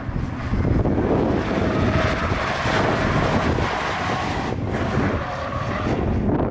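Nissan 200SX S13's turbocharged CA18DET four-cylinder running hard as the car slides through a corner, with tyre noise and wind buffeting the microphone.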